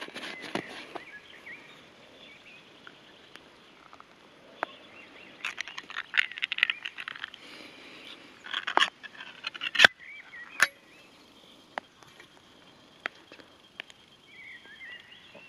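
Ring-pull lid of a tin can being peeled open by hand: a few bouts of metallic scraping and crackling, then two sharp clicks about ten seconds in. Faint bird chirps near the end.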